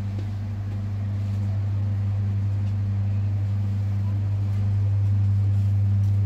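Steady low electrical hum of glass-door display refrigerators, growing louder toward the end.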